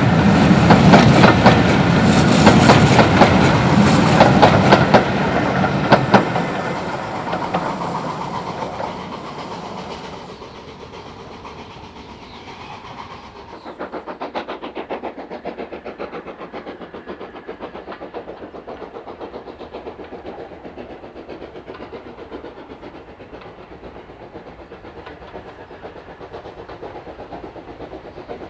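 Steam-hauled train passing close by, loud at first with sharp clicks of wheels over rail joints, then fading away over the next few seconds. About thirteen seconds in it gives way abruptly to a quieter, steady train sound with a fine, even rhythm.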